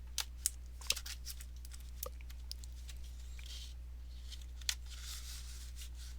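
Plastic Blu-ray case and its paper insert being handled: scattered light clicks and brief rustling of paper and packaging, over a steady low hum.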